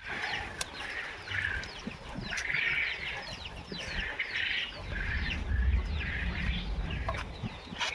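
Many birds chirping, with dense short calls overlapping, and a low rumble about midway through.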